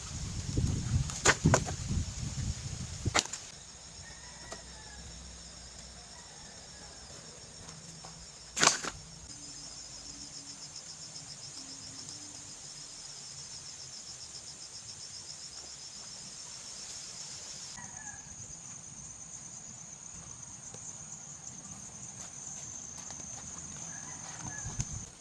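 Insects, likely crickets, chirping in a steady high pulsing drone, with a few faint bird calls. The first three seconds carry rustling and knocks, and there is one sharp knock about nine seconds in.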